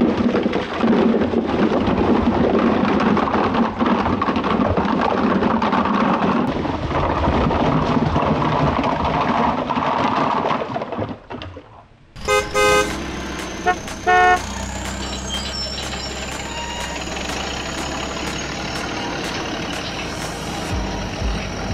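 Water and plastic toy building blocks pouring and clattering onto a toy dump truck. After a short gap come two short electronic horn toots, then the steady high whine of a toy RC excavator's electric motor, with faint regular clicking.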